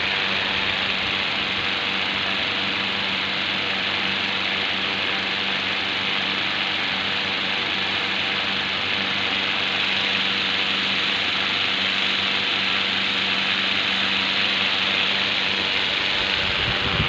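Steady machine hum with a constant hiss over it, running without change.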